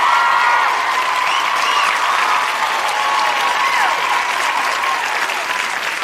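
Audience applauding: a dense, steady clatter of many hands clapping, with voices calling out over it.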